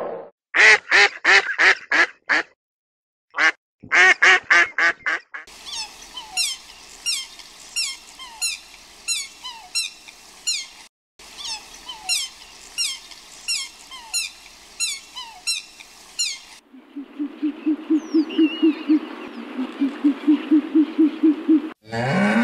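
Canada geese honking: two short runs of loud, evenly spaced honks, then about eleven seconds of many overlapping honks from a flock. For the last five seconds there is a lower, fast run of calls over a steady hiss, and a cow starts to moo at the very end.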